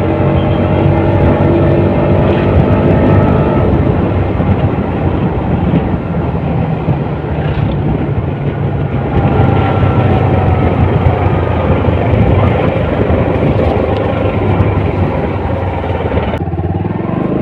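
Bajaj Pulsar NS125 BS6 single-cylinder engine running through its stock exhaust, a steady engine note whose pitch drifts a little up and down. About sixteen seconds in, the sound changes abruptly to a duller note.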